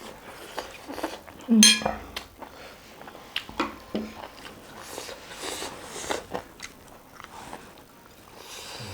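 Eating sounds: chewing and biting into food, with scattered crunches and clicks. There is a short, loud pitched sound about one and a half seconds in.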